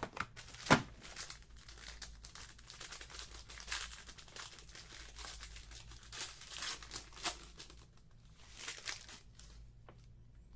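Crinkling and tearing of plastic wrapping as sealed trading card boxes are opened, with irregular crackles and a sharp click about a second in.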